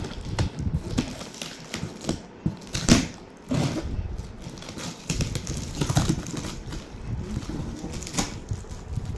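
Corrugated cardboard box and its packing tape being torn open by hand, in uneven rips and crackles, the loudest a sharp rip about three seconds in.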